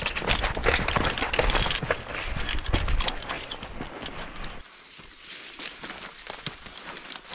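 Dry brush, twigs and leaf litter crackling and rustling with many sharp snaps during a scuffle in the undergrowth. About halfway through this gives way to quieter, sparser footsteps on leaf litter.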